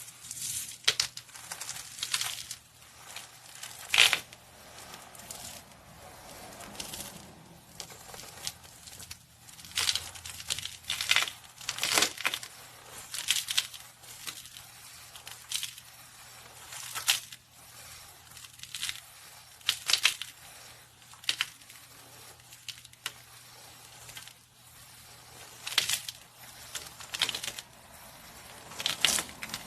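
Slime being squished and stretched by hand, giving off irregular crackling pops and clicks, with softer squelching between the louder pops.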